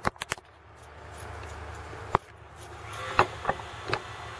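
Fiberglass mat being handled and cut with scissors: a few sharp snips and clicks over a steady low hum.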